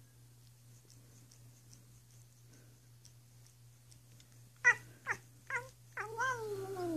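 Domestic cat making odd little calls while licking her paw: three short yelps in quick succession about two-thirds of the way in, then a longer drawn-out call that slides down in pitch.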